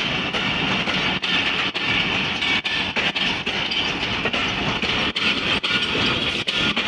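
Passenger train coaches rolling past close by: a steady rumble and hiss of steel wheels on rail, cut by repeated sharp clicks as the wheels cross rail joints.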